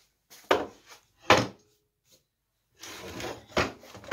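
Small wooden children's rocking chair knocking against a wooden workbench as it is set down and handled: two sharp wooden knocks in the first second and a half, then a stretch of clattering and scraping with more knocks near the end.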